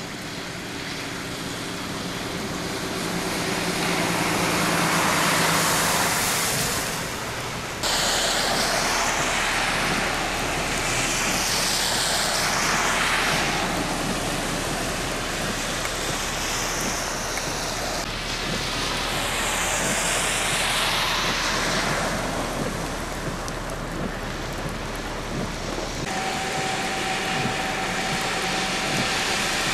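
Heavy rain with vehicles driving through deep standing water on the road. Each pass is a slow swell of tyre spray and splashing that rises and fades over the steady hiss of the rain.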